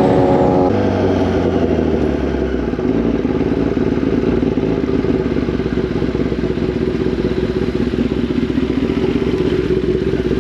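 Kawasaki ZX-10R's inline-four engine coming off the throttle as the bike slows to a stop, its pitch dropping about a second in and settling into a steady idle after about three seconds.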